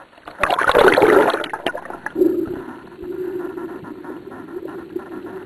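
Water gurgling and rushing loudly for about a second, then settling into a steadier, quieter gurgle.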